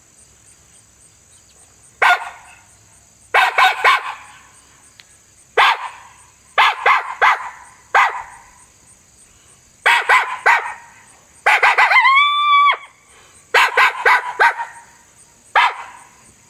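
Coyote barks imitated on an MFK mouth diaphragm call: a series of short, raspy barks, some single and some in quick clusters of two or three, with one longer bark about three-quarters through that rises and falls in pitch. The call is blown loose, with light tongue pressure and tilted forward, which gives the raspier bark meant to sound like a real coyote.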